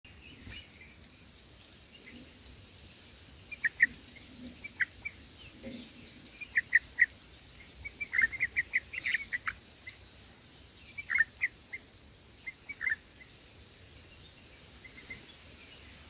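Bulbul chirping at the nest: short high chirps, singly and in quick runs, starting a few seconds in and stopping a few seconds before the end.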